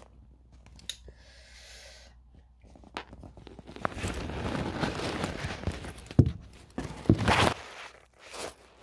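Handling noise from the phone being moved and set up: a few light clicks, then rubbing and rustling against the microphone from about halfway, with a few knocks and a loud scuff near the end.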